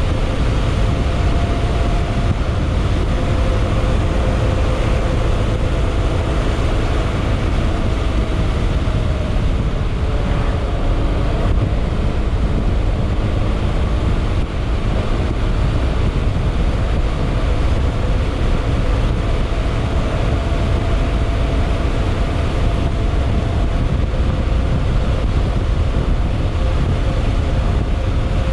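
Yamaha XMAX scooter's single-cylinder four-stroke engine running under way, heard onboard over a heavy low rumble. The engine note drops about ten seconds in and then picks up again.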